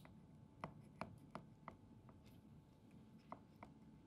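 Faint light clicks and scrapes of a small knife blade run around the inside edge of a ceramic ramekin, loosening a baked flan. There are about six irregular ticks: four in the first two seconds and two more past the three-second mark.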